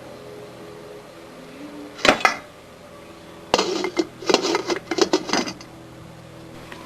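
Metal clinking and clattering of a cooking pot and utensils: one sharp knock about two seconds in, then a run of clinks for about two seconds, over a faint steady hum.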